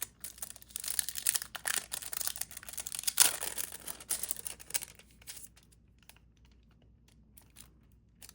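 Paper and plastic packaging crinkling and rustling as a packet of album inclusions is opened by hand: a quick run of small clicks and crackles with one louder crackle about three seconds in. It stops about five seconds in.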